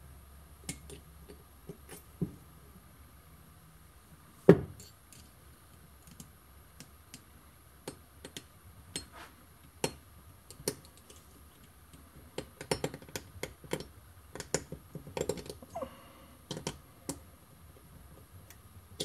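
Light metallic clicks and taps of small steel ratchet parts being handled and fitted into a 3/4-inch ratchet head by hand. One louder knock comes about four and a half seconds in, and the clicks come faster in the second half.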